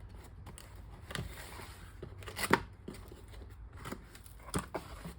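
Packaging being handled during an unboxing: scattered light clicks, rustles and small knocks, the sharpest click about two and a half seconds in.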